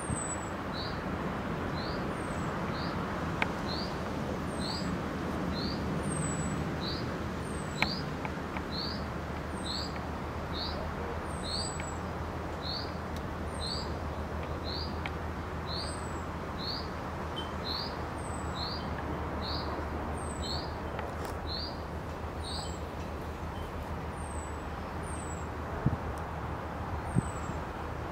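A songbird repeating one short, falling note about once a second, with a thinner, higher falling note between them, over a steady low background hum. The repeated note stops a few seconds before the end.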